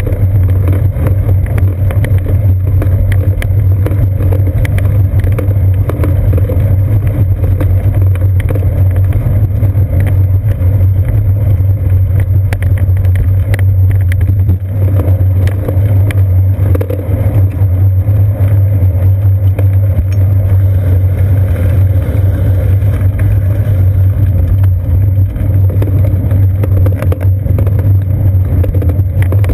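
Bicycle rolling over a brick-paved street, picked up through a seat-post-mounted GoPro Hero 2 in its housing. There is a loud, steady rumble with constant small rattling knocks from the uneven bricks.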